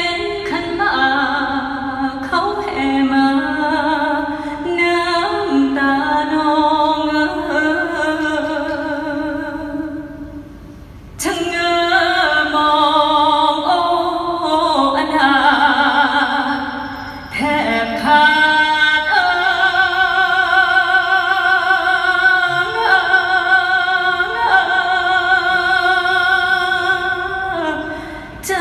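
A woman singing live through an arena sound system, holding long notes with a wide vibrato. She breaks off briefly about ten seconds in and again near seventeen seconds.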